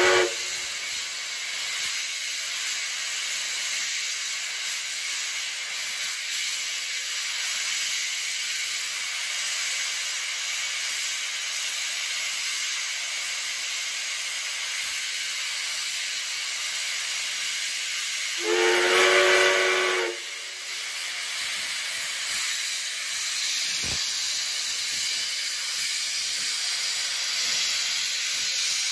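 Steam locomotive 5917, a NSW 59 class, hissing steadily with escaping steam, and a whistle blast of about a second and a half about two-thirds of the way through. The tail of another whistle blast cuts off at the very start.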